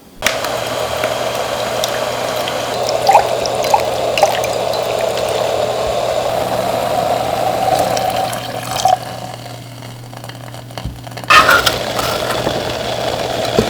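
Water running from a kitchen tap into a sink, a steady hiss over a low hum. The flow eases about nine seconds in and comes back strongly about eleven seconds in.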